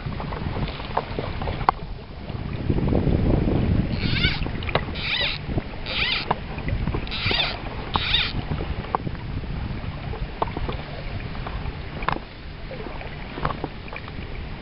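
Fly reel's click drag rasping five times, about a second apart, as fly line is pulled off it in arm-length strips, over a low rush of water and wind.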